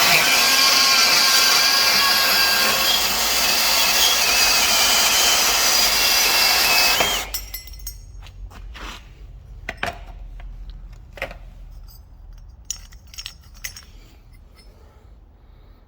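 Milwaukee M18 Fuel brushless portable band saw cutting through thin-walled steel square tube, the blade running with a faint high ring over the steady cutting noise. It stops suddenly about seven seconds in, followed by scattered light metallic clinks.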